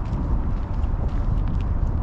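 Walking footsteps on a dirt and gravel trail, faint scattered crunches, over a steady low rumble that is the loudest part of the sound.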